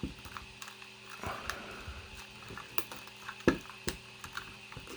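Irregular small clicks and snaps of 3D-printed plastic pieces being handled and pried apart, with one sharper crack about three and a half seconds in.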